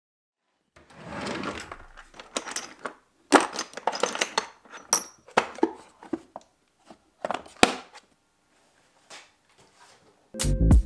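Rummaging in a drawer full of hand tools: loose metal tools clinking and clattering and a plastic drill bit case knocking, in irregular bursts with short pauses. Music with a steady beat comes in at the very end.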